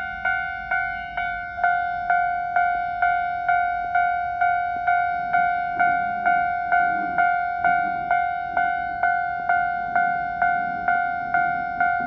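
Railway level-crossing warning bell ringing: one electronic ding repeated evenly a little over twice a second, warning that a train is approaching and the crossing is closed.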